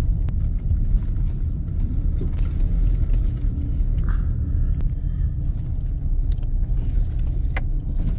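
A road vehicle driving: steady low engine and road rumble, with a couple of faint knocks.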